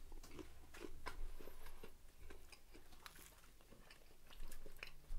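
Faint chewing of a chicken nugget, with scattered, irregular small clicks and mouth noises.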